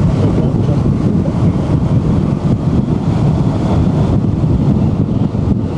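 Steady wind buffeting the microphone of a camera riding in a moving car, over the low rumble of the car driving along a narrow country lane.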